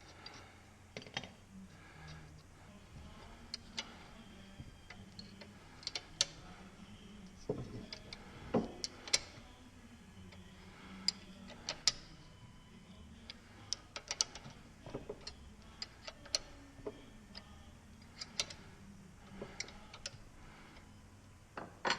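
Sparse, irregular light metallic clicks and taps, loudest around the middle, from small steel parts of a ratcheting arbor press being handled and fitted by hand.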